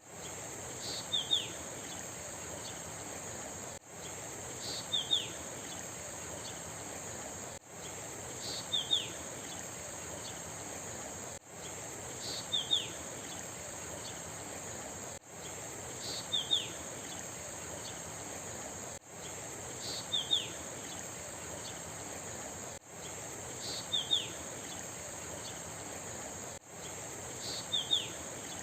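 Looped nature recording repeating about every four seconds: a steady high insect trill over a soft, even hiss, with a bird giving a quick group of three descending chirps about a second into each repeat. The sound briefly drops out at each loop seam.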